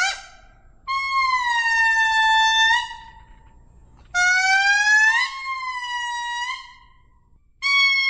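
A lemur calling in a series of long, clear, pitched calls, each lasting one to two seconds, with sudden breaks in pitch within each call. About three full calls follow one another, and a new one starts near the end.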